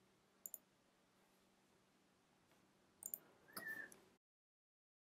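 Near silence with faint computer mouse clicks: two close together about half a second in, then a quick cluster about three seconds in, followed by a brief faint noise. The sound then cuts to dead silence near the end.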